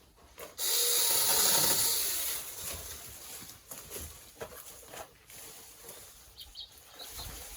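Battery-powered mini chainsaw cutting through wood: a sudden loud hissing rush about half a second in, which eases off over the next couple of seconds.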